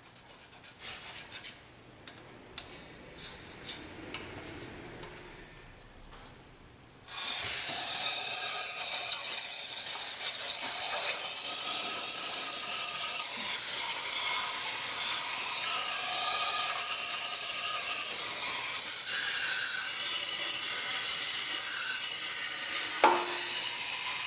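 Aerosol can of brake parts cleaner spraying in one long continuous hiss into the water jackets around the cylinders of a Subaru EJ253 engine block, flushing out oily sludge. It starts suddenly about seven seconds in, after a few seconds of faint handling clicks.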